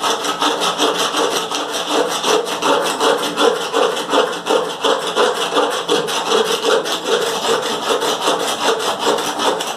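Old paint being scraped off a wooden bass drum shell: rapid, even back-and-forth scraping strokes, continuing without a break.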